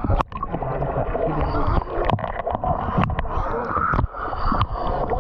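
Seawater sloshing and lapping over an action camera held at the waterline, with sharp splashes and knocks as small waves break against it.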